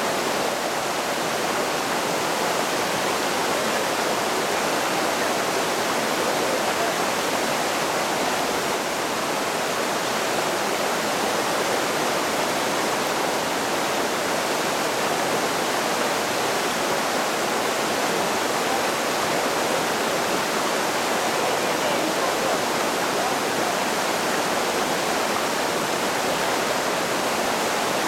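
Rocky mountain creek rushing steadily over boulders and through riffles: a constant, even roar of whitewater.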